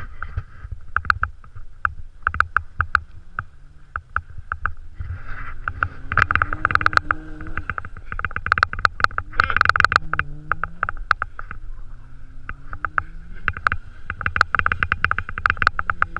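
Car engine revving up and down as the car is drifted in snow, under a dense run of sharp crackling clicks.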